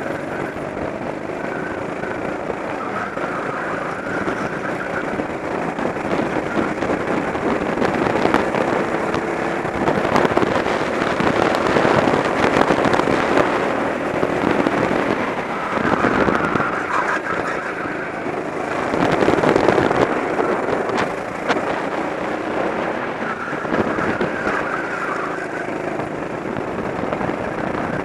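Kart engine running under throttle, heard from on board, rising and easing as the kart drives through the corners, with a crackly, rough texture.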